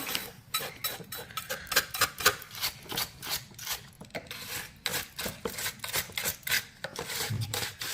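Irregular light clicks and scraping rustles of hand-handling, as vacuum-cleaner dust is brushed into a bag.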